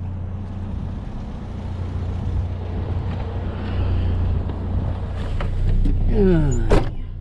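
Pickup truck engine running steadily while driving, a low drone with road noise. About six seconds in, a sound falls quickly in pitch, followed by a single sharp knock.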